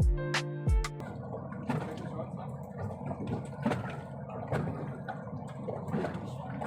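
Background music with plucked notes ends about a second in, giving way to the steady rumble of a boat's engine and water, with a few light knocks.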